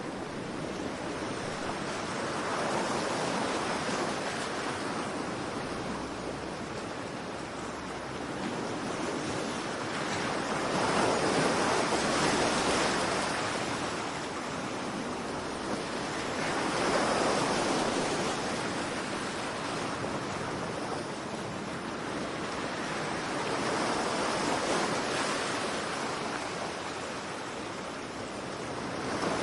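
Ocean surf: waves breaking and washing in, the rushing noise swelling and fading every six to eight seconds.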